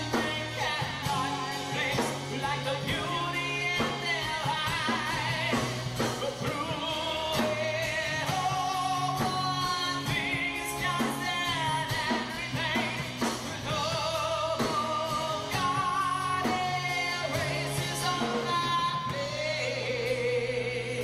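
Live acoustic rock ballad: a male lead vocalist sings into a microphone with vibrato on the held notes, over steady band accompaniment.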